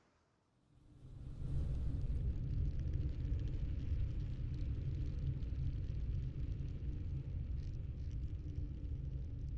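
A low, steady rumbling drone from the soundtrack's sound design fades in about a second in and holds, with no beat or melody.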